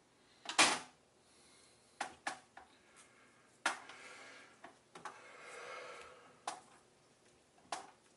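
Handling noise from a bare hard drive and pieces of its plastic casing on a work surface: about seven separate knocks and clicks, the loudest just after the start, with a brief scrape a little past the middle.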